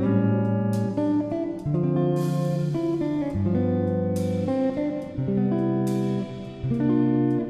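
Background music played on guitar, a new chord sounding every second or two.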